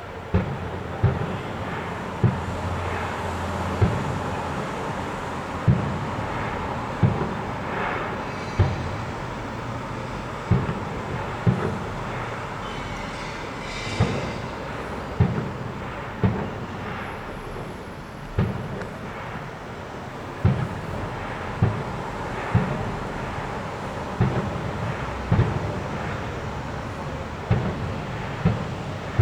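Fireworks display: aerial shells bursting in a steady run of deep booms, roughly one a second, with crackle and hiss between them.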